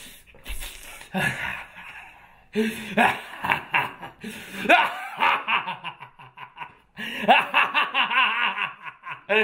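A man's voice laughing in three long bouts of fast pulsing runs with sliding pitch, the last two the loudest.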